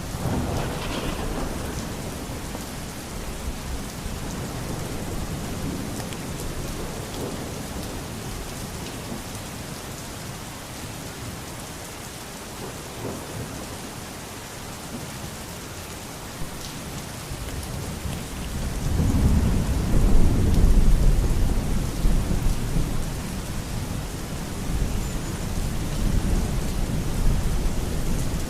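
Steady rain falling, with rolls of thunder: a short rumble at the start, and a louder, longer roll that builds about two-thirds of the way through and slowly dies away.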